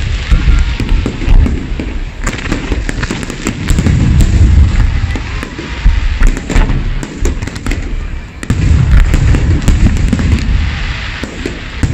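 Fireworks display: aerial shells bursting in quick succession, loud deep booms overlaid with dense crackling, with a brief lull past the middle.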